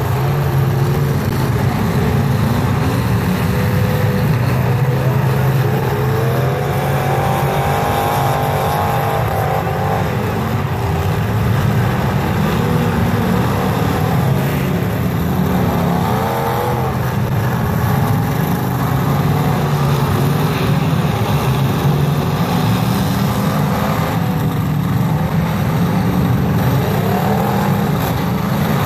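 Many demolition derby car engines running together, loud and continuous, with revs rising and falling again and again.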